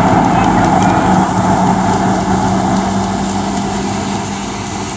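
Heavy diesel truck's engine running slowly at low revs as the truck creeps past, a steady hum that fades about three seconds in as it moves on.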